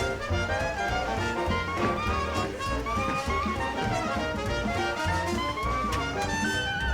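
Background music: an upbeat jazzy tune with brass and a steady beat.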